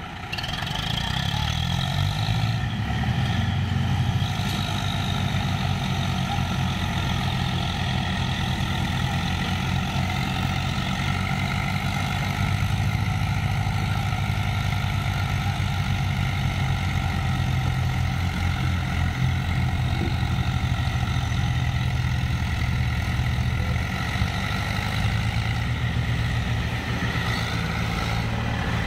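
Diesel engines of Swaraj tractors running hard under load as they tow a stuck tractor, a steady low throb that comes up sharply just after the start and holds.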